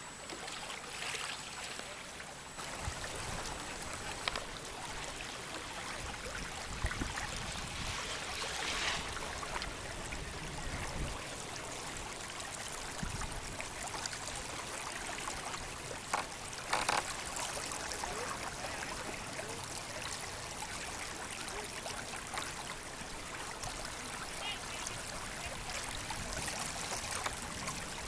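Lake water lapping and splashing in small waves, a steady wash with two short knocks a little past the middle.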